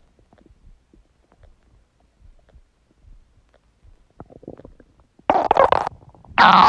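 Human stomach gurgling: faint scattered pops and small gurgles, then two loud gurgles near the end, the second with a wavering, squeaky whine.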